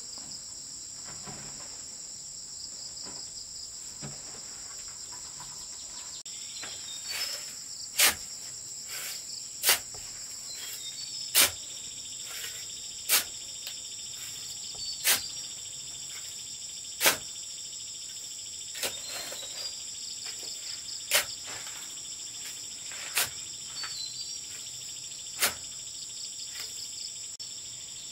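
Steady high-pitched insect chirring, crickets or cicadas, with a few short bird chirps. About six seconds in, sharp knocks begin and repeat roughly every two seconds, around ten in all; they are the loudest sound.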